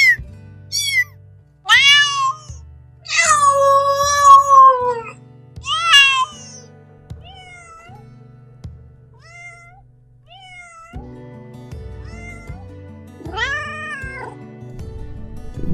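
A cat meowing about ten times, with one long drawn-out meow about three seconds in and fainter short meows in the middle, over soft background music.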